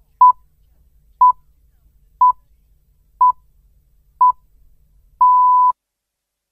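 Radio time-signal pips, the Greenwich Time Signal: five short, high beeps of one pitch, a second apart, then a sixth, longer pip that marks the hour.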